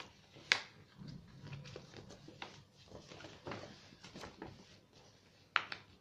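A large sheet of paper rustling and crinkling as it is folded and creased by hand, with two sharp crackles of the paper, one about half a second in and one near the end.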